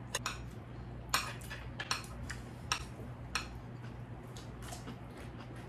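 Eating utensils (chopsticks, spoons and forks) tapping and clinking against bowls and plates at a meal: scattered light clicks, most of them in the first three seconds and fainter after.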